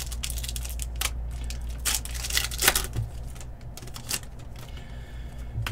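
Foil wrapper of a trading card pack crinkling and tearing as it is ripped open by hand: a run of irregular sharp crackles, the densest about two to three seconds in, over a steady low hum.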